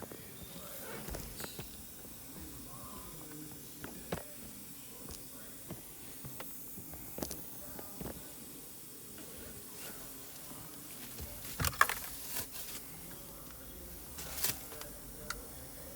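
Scattered light clicks and knocks of parts and tools being handled during hand work on a car's steering column and wheel, over a steady faint hiss. There is a louder cluster of knocks about twelve seconds in.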